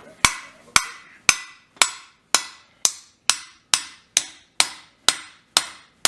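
Hand hammer striking steel on an anvil, about thirteen blows at a steady two a second, each ringing briefly.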